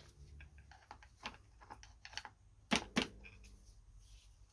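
Light, irregular clicks and knocks of a Tongsheng TSDZ2 mid-drive motor being worked loose and eased out of its casing, with two louder knocks in quick succession about three seconds in.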